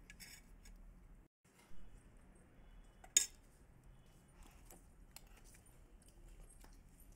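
Scattered light taps and clinks of a spoon and bread against a stainless steel plate, with one sharper clink about three seconds in.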